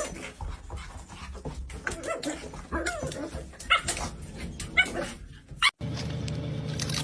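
A dog whimpering and yipping: short, high, wavering cries several times, until a cut near the end.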